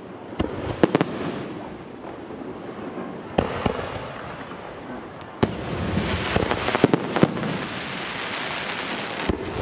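Aerial firework shells bursting overhead, with sharp bangs a few seconds apart. From about halfway in, a dense crackling sets in, with a cluster of further bangs.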